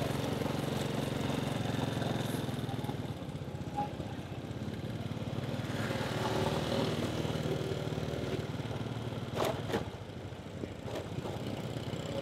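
Small motorcycle engine running steadily at low road speed, over general street traffic noise. A couple of sharp knocks come about three-quarters of the way through.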